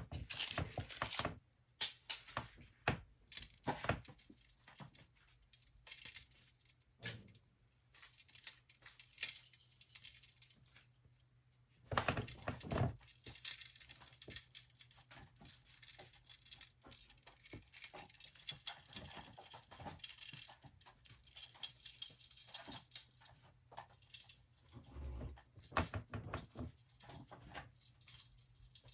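Close, irregular crinkling, tearing and tapping of packaging being handled and unwrapped, with a louder rustle about halfway through.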